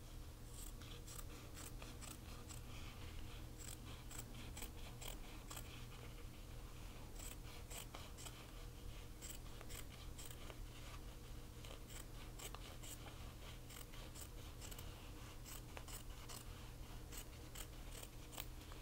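Small sewing scissors making faint, quick, repeated snips through fabric, two or three a second. They are trimming a collar's seam allowance in half to grade the seam.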